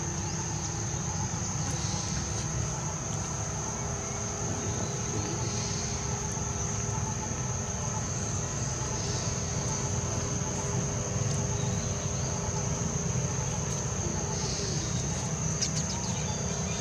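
Outdoor ambience: a steady high-pitched insect drone over a continuous low rumble, with a few faint clicks near the end.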